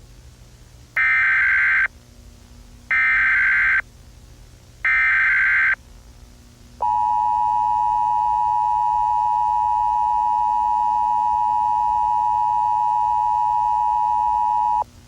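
Emergency Alert System broadcast tones: three short bursts of digital SAME header data, about a second each and two seconds apart, then the two-tone attention signal held steady for about eight seconds before it cuts off. Together they signal the start of an emergency alert message.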